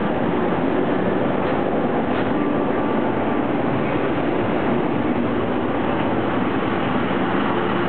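JR Kyushu ED76 electric locomotive hauling a sleeper train, passing close by as it pulls out of the station: a loud, steady running noise.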